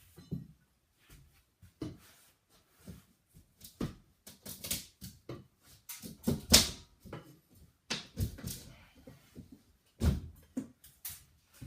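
Old sheetrock being torn out by hand: a run of irregular cracks and crunches of breaking drywall with short pauses between, the loudest a little past halfway and again near the end.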